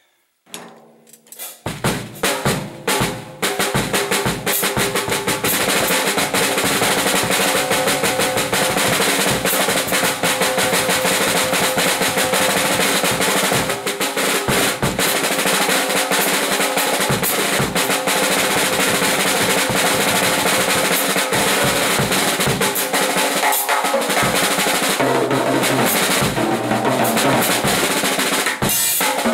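Acoustic drum kit played solo: a few separate soft strokes, then from about two seconds in fast, dense rolls around the drums that carry on without a break.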